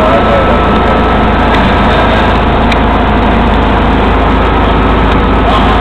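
Tow boat's engine running steadily at towing speed, with a constant rushing hiss of water and air over it.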